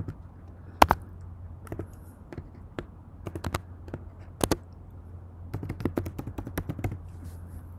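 Computer keyboard keys clicking as an email address is typed: scattered single keystrokes, then a quick run of them about three quarters of the way through, over a low steady hum.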